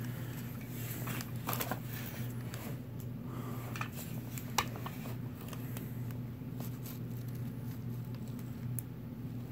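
Handling noises from a Stabila 48-inch aluminium spirit level being lifted from its box and turned over: scattered small taps and clicks with a faint rustle, and one sharper click about four and a half seconds in, over a steady low hum.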